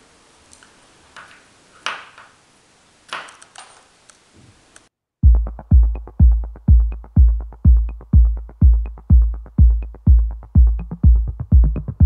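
A few light clinks of spent brass cartridge cases being picked over and sorted by hand. About five seconds in, loud electronic music with a steady kick drum, about two beats a second, cuts in and carries on.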